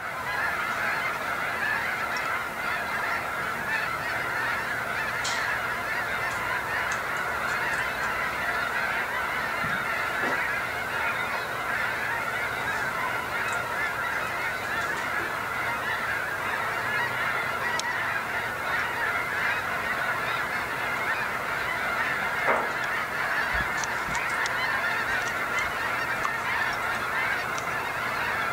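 A large flock of snow geese calling, a dense chorus of many overlapping voices without a break.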